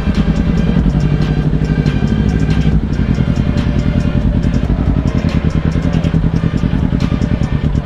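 Motorcycle engine running steadily while riding, with background music playing over it.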